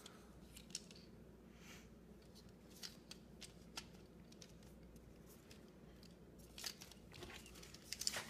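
Faint scattered clicks and light knocks of a printer's plastic mechanism being handled and turned over, with a few more clicks close together near the end.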